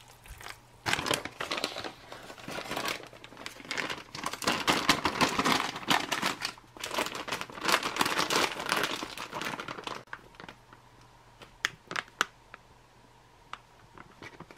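Clear plastic ration pouch crinkling as hands squeeze and knead the rehydrating freeze-dried rice inside. The crinkling is dense for about nine seconds, then gives way to a few scattered light clicks.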